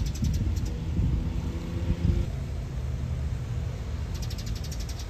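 Low outdoor rumble, uneven in level, with two short runs of quick high chirping near the start and near the end.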